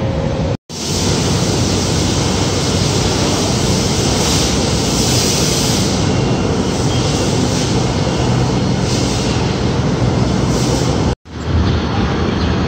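Steady, loud rumbling and hissing of a belt conveyor running and bulk material pouring through a hopper loading chute into a truck bed. The sound drops out twice for an instant, about half a second in and near the end.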